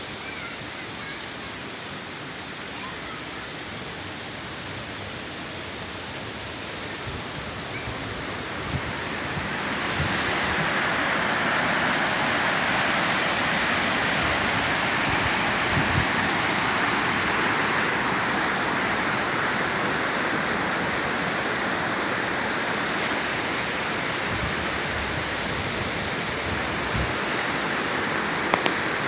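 Rushing river water, a steady hiss-like roar that grows louder about ten seconds in, with a few soft thumps.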